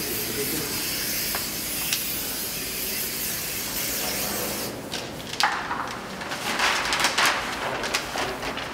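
A steady hiss that cuts off suddenly about five seconds in, followed by irregular crinkling and rustling of a paper cutout being pressed and smoothed flat against a tiled wall.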